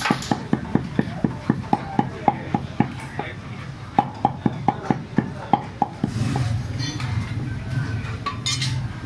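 A meat cleaver chopping chicken on a thick round wooden chopping block, with quick, evenly spaced chops of about four a second in two runs broken by a short pause. The chopping stops about six seconds in, and a steady low rumble of background noise takes over.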